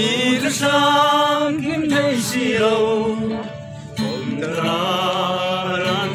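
A group of young men singing a song together to a strummed acoustic guitar, in sung phrases of a couple of seconds each.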